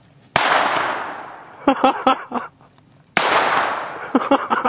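Two shots from a Heritage .22 Magnum single-action revolver, about three seconds apart, each trailing off in a long echo that dies away over about a second.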